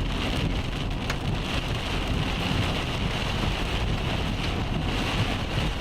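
Heavy rain falling on a moving vehicle, over the steady low rumble of the car on the road.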